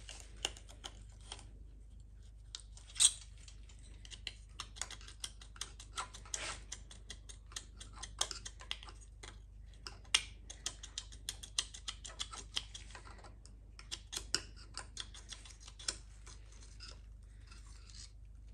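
Screwdriver tip clicking and scraping against a seized connecting-rod bearing shell on a BMW N55 crankshaft as it is pried loose: irregular light metal taps and scrapes, with a sharper knock about three seconds in and another about ten seconds in.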